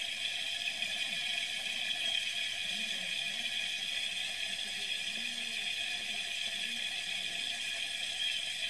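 Steady hiss of water spraying from an outdoor spigot, heard through a screen's speaker.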